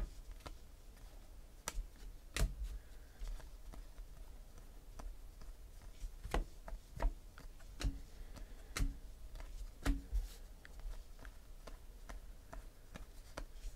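Cardboard trading cards being flipped through and dealt by hand onto piles: irregular clicks and taps of card edges, roughly one a second.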